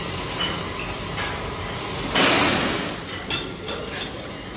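Metalworking workshop noise: scattered clinks and knocks of metal, with a loud hissing rush lasting about a second a little past halfway.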